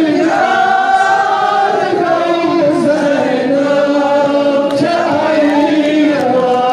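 A group of men chanting a noha, a Shia mourning lament, together in long, slowly bending held notes.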